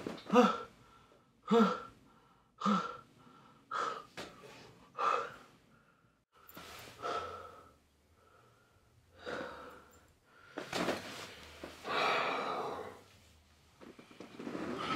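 A man breathing heavily in short gasps, about one breath a second at first, then slower, longer breaths.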